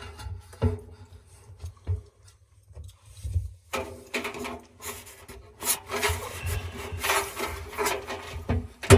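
Washing machine drum paddle being pushed and slid across the inside of the drum: a few light knocks, then several seconds of scraping and rubbing, ending in a sharp click near the end as the paddle's tabs lock into the drum holes.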